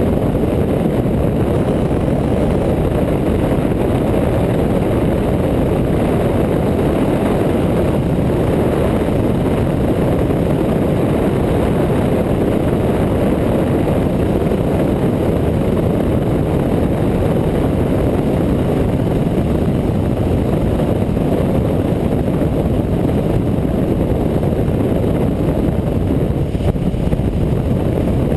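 Motorcycle riding steadily at road speed, heard from a camera mounted on the bike: a loud, even rush of engine and wind noise with no changes in revs.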